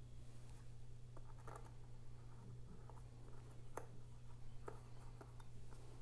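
A few faint clicks and light scrapes of a precision screwdriver working tiny screws in a MacBook Air's aluminium case, over a steady low hum.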